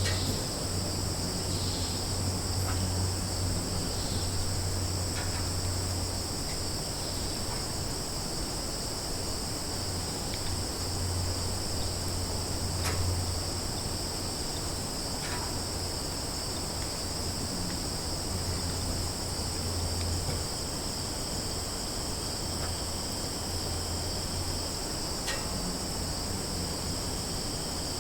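Summer forest ambience: a steady, high-pitched chorus of insects runs throughout. A low rumble fades in and out beneath it, and a few faint short chirps occur.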